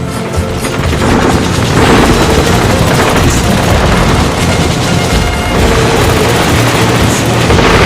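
Battle sound effects, the booms of explosions and bursts of gunfire, mixed loudly over the song's instrumental music.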